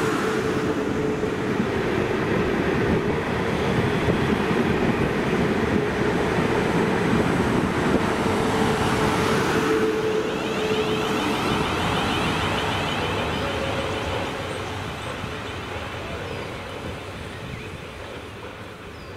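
A train running through the station, loud and steady with a held hum. It fades away over the last several seconds as it moves off.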